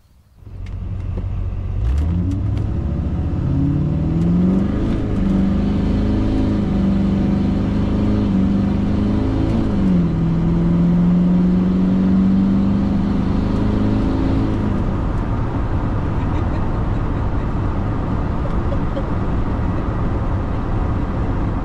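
Duramax V8 turbodiesel in a Chevrolet K1500 pickup pulling under acceleration, heard from inside the cab. The engine note climbs, holds, drops once about ten seconds in as the automatic shifts up, then settles into a steady cruising rumble with road noise.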